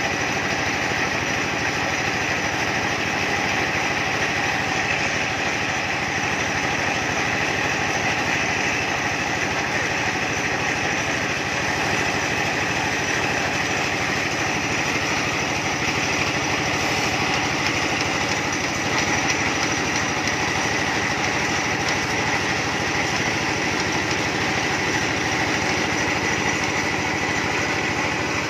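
Small engine running steadily, driving a well-drilling machine.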